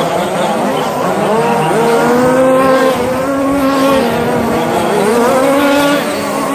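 Several radio-controlled short course trucks racing. Their motors give overlapping whines that rise and fall in pitch as the trucks accelerate and slow through the turns.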